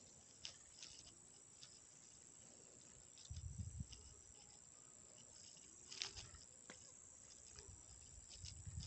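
Near silence with faint footsteps and brushing through tall grass: scattered small clicks and a few soft low thumps about three and a half seconds in.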